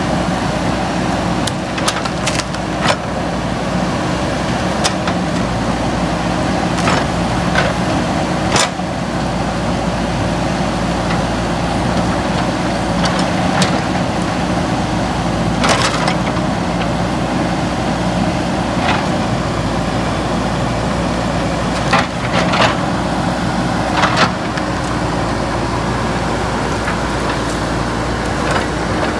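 JCB 3DX backhoe loader's diesel engine running steadily under load, with sharp knocks and cracks now and then from the machine at work.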